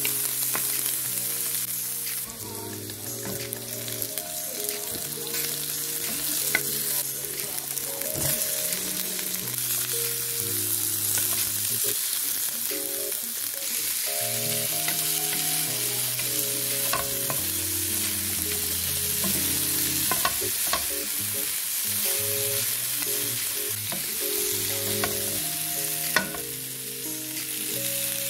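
Chopped celery, garlic, bell peppers, onion and chicken pieces sizzling in oil in a stainless steel frying pan as they are stirred, with scattered sharp clicks of the utensil against the pan.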